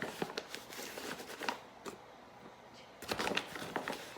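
Dry rustling with light clicks and scrapes of self-rising flour being scooped and measured out with a measuring cup, busiest at the start and again about three seconds in.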